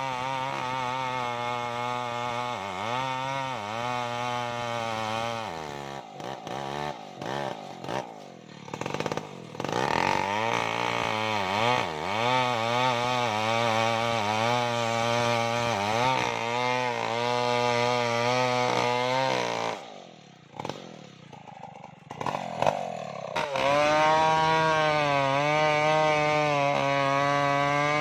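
Stihl MS070 two-stroke chainsaw cutting into a tree trunk, its engine note wavering up and down under load. It falls back to a low idle twice, about six seconds in and again about twenty seconds in, before running up and cutting again.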